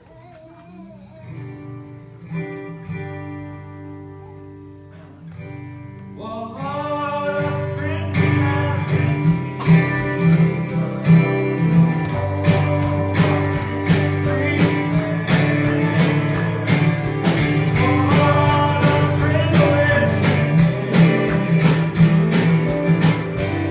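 Live country-style gospel music led by guitar: soft held notes at first, then from about eight seconds in the full band plays with a steady strummed beat.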